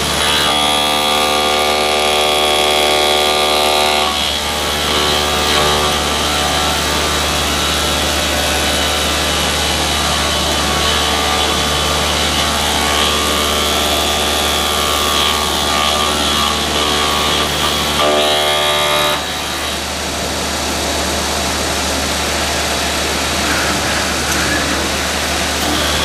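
VMC220L CNC vertical machining center milling a metal housing with an end mill under flood coolant: a loud, steady cutting whine made of several pitched tones over a hiss. The tones shift about four seconds in, and about nineteen seconds in the sound turns noisier and a little quieter.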